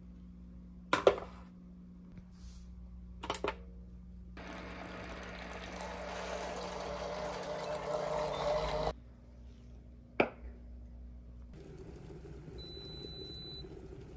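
A ceramic mug clinks against a stone countertop, then water is poured into the mug for about four seconds, the pour getting louder as it fills. Another sharp clink follows, and near the end there is a short high beep.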